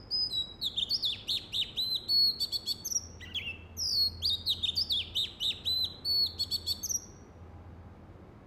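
Oriental magpie-robin singing: a varied run of clear whistled notes, many sliding down in pitch, in two long phrases with a short break about three seconds in. The song stops about seven seconds in.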